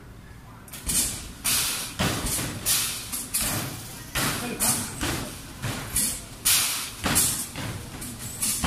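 Rapid shooting at an arcade basketball machine: balls banging against the backboard and rim and rolling back down the ramp, starting about a second in and going on at roughly two hits a second.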